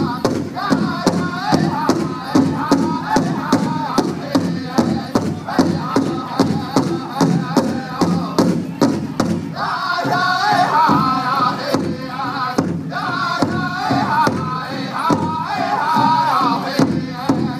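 Powwow drum group singing over a steady beat on a big drum. About ten seconds in, high-pitched voices lead the song above the lower chorus.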